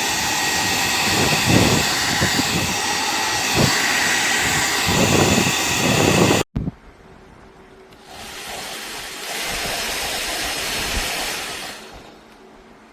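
PowerPac travel hair dryer running, a steady loud rush of fan and airflow with uneven low rumbling, like air buffeting the microphone. It cuts off abruptly about six and a half seconds in, then runs again more quietly for about four seconds from about eight seconds in.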